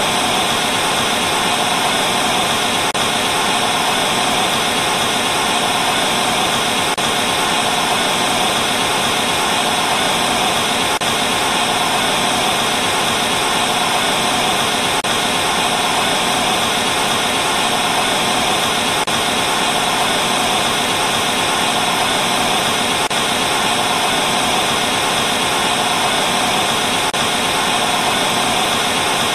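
TV static with no signal: a steady, loud hiss that does not change.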